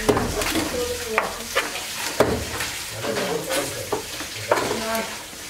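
Knife cutting through a large fish's skin and flesh on a wooden chopping board, a continuous rough noise with several sharp knocks scattered through it.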